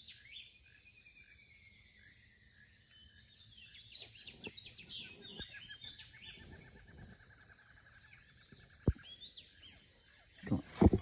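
Birds chirping and calling, with two long, evenly pulsed trills, over faint steady high-pitched insect tones. A single sharp click comes about nine seconds in.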